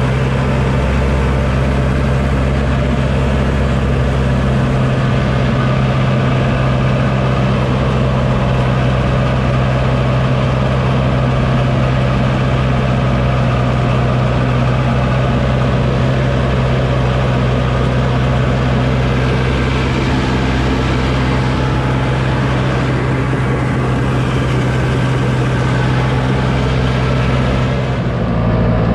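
Diesel engine of a Komatsu D51PX-22 crawler dozer running steadily, heard from inside the operator's cab as the machine travels. A brief change in the sound comes near the end.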